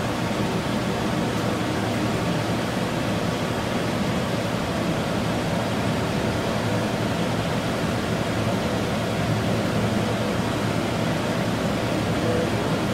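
Blower door fan (Model 3, 110 V, Ring A fitted) running steadily with a constant airy rush. It is depressurizing the house to about 54 pascals during the test.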